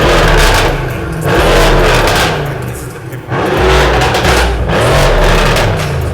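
Mercedes-AMG C63 S twin-turbo V8 being revved through a custom exhaust back section with valves, rising and falling about four times.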